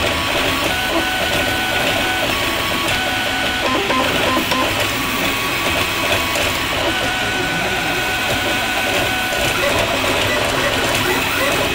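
Atomic U300 3D printer running a print: its stepper motors whine in held tones that jump from pitch to pitch every second or so as the print head changes its moves.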